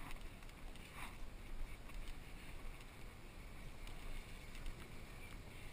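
Wind rumbling on the microphone of a body-worn action camera, a steady low buffeting, with a few faint clicks and knocks.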